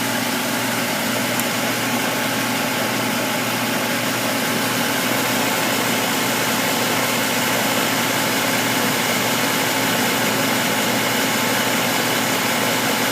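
Goodman R-22 air conditioning condensing unit running steadily, its compressor and fan giving a constant hum, while the system is being charged with refrigerant and the sight glass shows clear with no bubbles.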